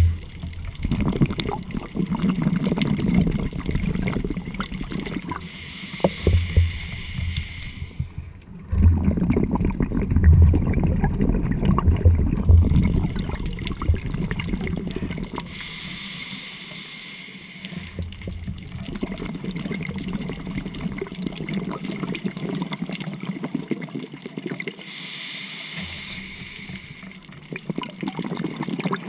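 A scuba diver breathing underwater through a regulator. A short hiss on each inhale, three times about nine seconds apart, each followed by exhaled bubbles gurgling and rumbling past.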